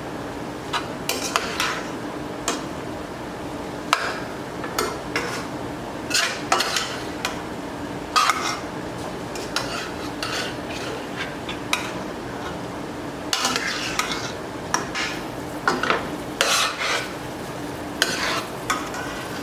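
A utensil stirring and scraping shredded chicken around a pan on the stove in irregular strokes, one or two a second, over a steady low hum.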